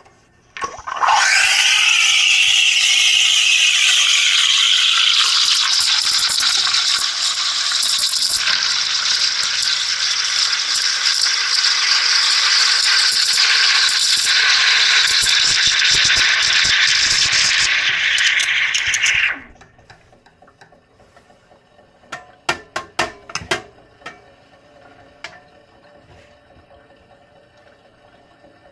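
Olympia Cremina SL steam wand frothing soapy water in a stainless steel pitcher: a loud hiss starts about a second in, with a shifting whistle over the first few seconds as air is drawn into the foam, then settles into a steady hiss as the liquid swirls. The steam cuts off suddenly after about nineteen seconds, and a few sharp clicks follow.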